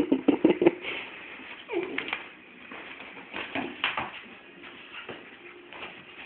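Dogs play-fighting: a quick flurry of short, sharp dog sounds in the first second, then a short cry about two seconds in and scattered scuffling sounds.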